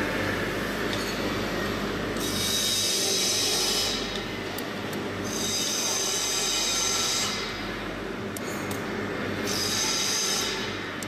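Three bursts of a high-pitched mechanical whine, each lasting one to two seconds and fading out, over a steady electrical hum.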